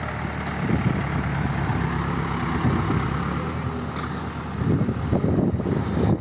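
Backhoe's engine running steadily, getting louder and rougher about three-quarters of the way through.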